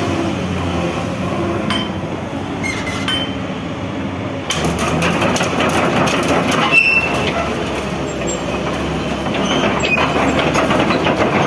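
Komatsu PC200-8 hydraulic excavator running, its diesel engine humming steadily. From about four seconds in, repeated metal clanking and brief squeaks join the engine sound.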